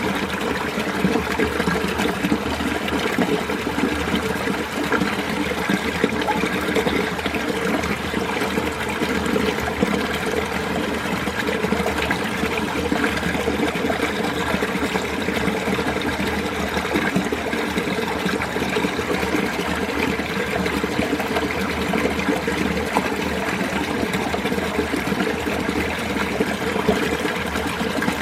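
Mountain stream running steadily, a continuous even rush of flowing water.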